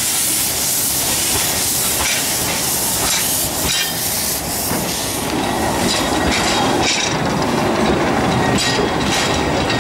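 Narrow-gauge steam train departing: steam hissing from the 1921 Kerr Stuart locomotive No. 4 Edward Thomas as it pulls away, while its passenger coaches roll past. The hiss fades after about five seconds and the coaches' wheels click over the rail joints.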